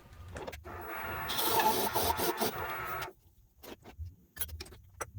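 Forstner bit boring into a shift-knob blank: a rasping, scraping cut that stops suddenly about three seconds in, followed by a few light clicks.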